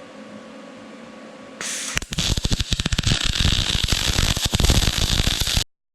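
Aluminum MIG weld with a spool gun feeding 4043 0.035 wire on a Vulcan OmniPro 220: a brief hiss, then about two seconds in the arc strikes and crackles loudly and steadily for about three and a half seconds before cutting off abruptly.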